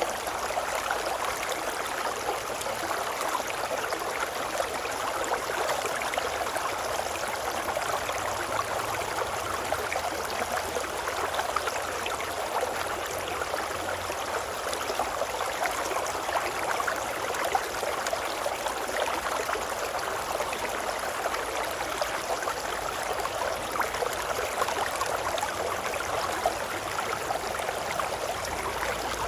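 A river babbling and rushing steadily, running water at an even level with no let-up.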